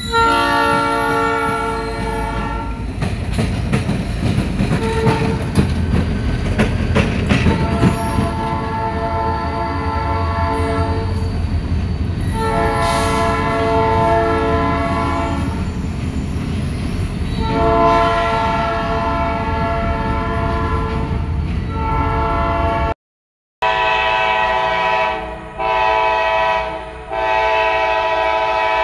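Diesel freight locomotive horns sounding a series of long multi-note chord blasts with short gaps between them, over the low rumble and rail clatter of passing locomotives in the first half. In the last few seconds a horn blows almost without pause, breaking off briefly twice.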